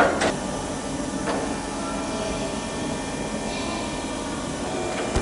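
Steady workshop background hum and hiss, with a sharp knock at the start, two fainter taps within the next second and a half, and another click near the end.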